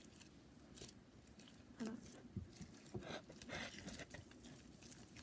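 Slime being squeezed and worked by hand, making faint, irregular wet clicks and crackles.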